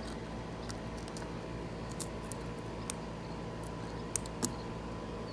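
A few short clicks and taps of fingers handling a new condenser fan motor and picking at its plastic drain plug, over a steady background hum.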